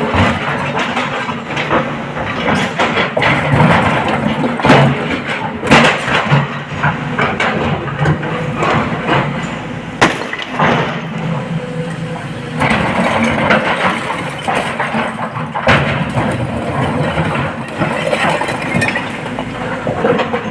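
SANY 225 excavator's diesel engine running steadily while it loads a dump truck, with frequent sharp knocks and crashes as the load strikes the truck body.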